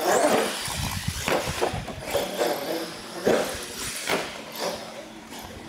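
Radio-controlled monster truck driving across a concrete floor and jumping plywood ramps, with a few sharp knocks and thumps as it hits the ramps and lands. The loudest thump comes about three seconds in.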